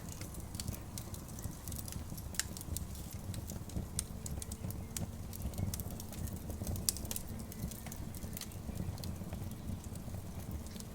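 Campfire crackling, with irregular sharp pops and snaps over a steady low rumble.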